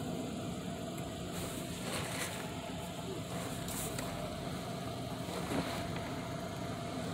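Car engine idling, heard from inside the cabin: a steady low hum.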